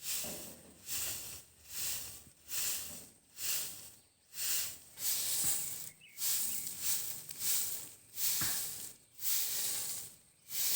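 Rhythmic swishing, scraping strokes, a bit more than one a second, each a short hiss.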